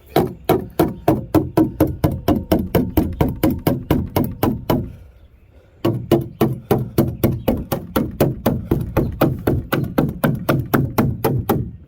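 Rapid, even strikes of a tool against an old plastic patch on a plastic kayak hull, about four a second, chipping at it to knock it off. The strikes come in two runs with a short pause about five seconds in.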